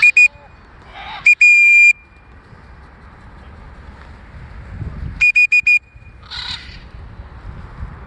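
Loud blasts on a whistle at one steady high pitch: a short blast at the start, a short and a longer blast about a second in, and four quick pips about five seconds in. Short harsh squawks come between the blasts.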